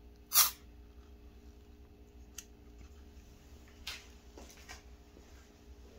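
Handling noise: one sharp knock about half a second in as a hand works at the camera, then a few faint clicks over a low steady hum.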